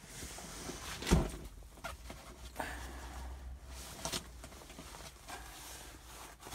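Handling noises at close range: one sharp thump about a second in, then light rustles and a few small clicks over a low steady hum.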